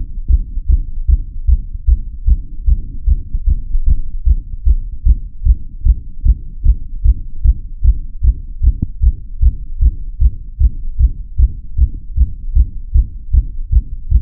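Human heartbeat heard through a stethoscope: a steady, quick rhythm of low, muffled thuds.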